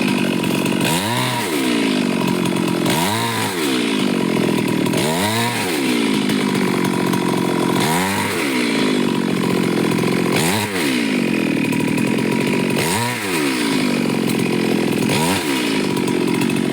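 Chainsaw running at high revs and cutting wood, its engine pitch dipping and recovering seven times, every two seconds or so, as the chain bites into the wood.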